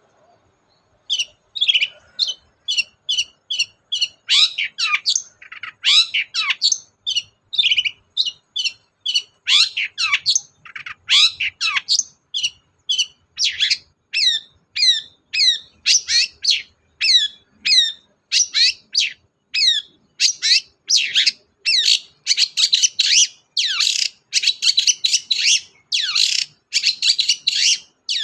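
Long-tailed shrike (cendet) in full song: a fast, continuous run of short, high notes, each sliding downward, a few of them longer sweeps that drop lower. It starts about a second in and grows denser toward the end.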